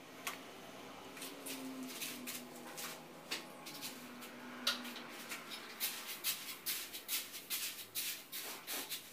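Gritty scraping and rustling of a sand-cement mortar mix being raked and spread by hand over a floor, in short repeated strokes that come faster in the second half, with one sharper click about halfway.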